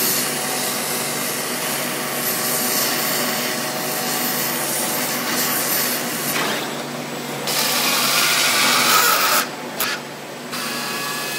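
Gas torch flame hissing steadily while it heats a hardened steel part to anneal it. The hiss changes about two-thirds of the way in and grows louder, then cuts off suddenly near the end as the torch is shut off.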